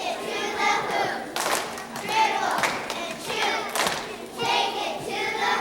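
A group of young girls chanting a cheer in unison, in short phrases, with sharp claps or stomps between them.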